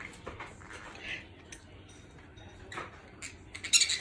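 A Chihuahua and a conure playing on a hardwood floor: scattered light clicks, scuffles and squeaks, with a loud burst of sharp, high, squeaky sounds near the end.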